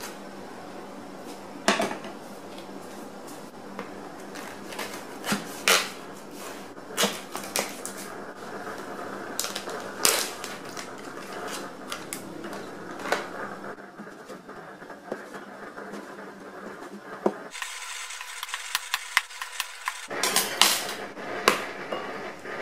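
Kitchen handling sounds: a knife cutting into and tapping a plastic tofu tub on a plastic cutting board, with scattered sharp clicks and knocks, over a steady low hum. Near the end a quick run of clicks as a ceramic bowl and eggs are handled.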